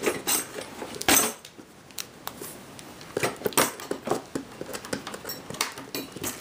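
Irregular clicks, knocks and rustles of a cardboard gift box being handled and opened, loudest about a second in.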